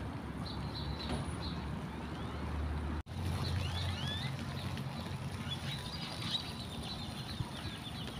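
Small birds chirping and twittering over a low steady rumble, with a brief cut-out about three seconds in.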